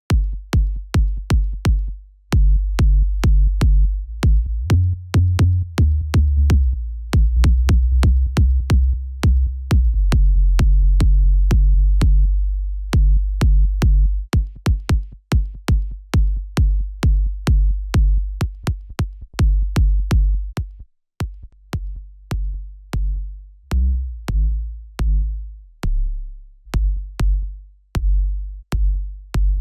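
Electronic drum loop playing in a fast repeating pattern of sharp hits, each with a heavy sub-bass tail added by a drum processor. The sub follows each hit and fills the low end so the drums hit harder. The loop briefly stops about two seconds in and again around twenty-one seconds.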